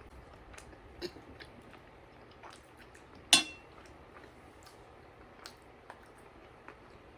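Eating sounds: faint chewing with small scattered mouth clicks, and one sharp, briefly ringing clink of tableware a little over three seconds in.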